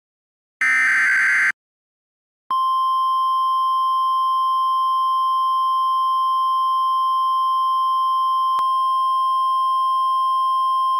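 The last burst of an Emergency Alert System SAME header, about a second of buzzing data tones. After a short silence, the steady single-pitch NOAA Weather Radio warning alarm tone (1050 Hz) starts about two and a half seconds in and holds unbroken, announcing a severe thunderstorm warning.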